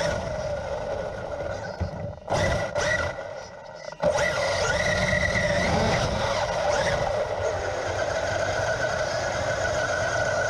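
Traxxas UDR radio-controlled truck driving, its electric motor whining steadily over the rumble of the tyres. About two seconds in, the sound drops away with a few short knocks, then comes back with a sharp bang at four seconds and runs on steadily.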